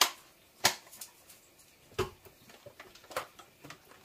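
Sharp clicks and knocks of plastic spice shakers being handled, a flip-top cap among them: four louder knocks at uneven intervals, with lighter clicks between.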